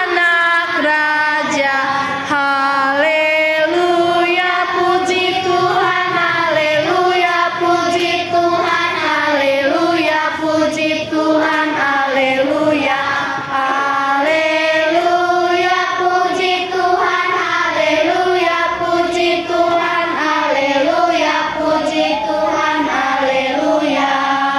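A class of schoolchildren singing a Sunday-school song together as a group, one melody carried in steady phrases, with no instruments.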